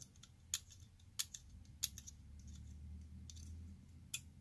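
A metal tool scraping and ticking against the copper tip contacts inside an opened SH72 soldering iron handle, cleaning off suspected corrosion: a handful of short, sharp clicks at irregular spacing.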